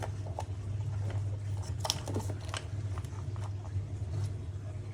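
Scattered small clicks and rustles of scooter wiring connectors being handled and checked, over a steady low hum.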